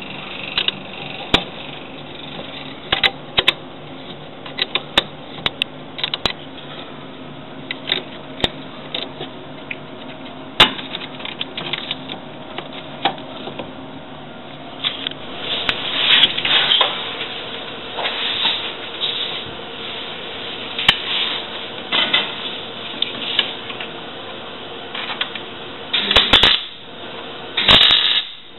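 Irregular metal clicks and taps, then denser scraping from about halfway, as rust is worked off a van's rear frame beam with hand tools. Near the end come two short bursts of arc welding, each about a second long.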